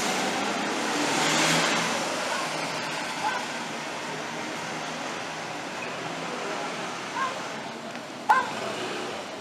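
Street traffic: a car passes, swelling and fading about a second and a half in, over a steady hum of the street. A dog barks three times in short yaps, the last and loudest near the end.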